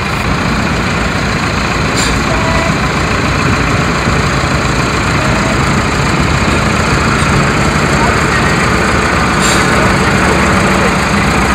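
Avia trial truck's diesel engine running steadily under load as the truck crawls across a steep, rutted slope, with two short sharp clicks about two seconds in and near the end.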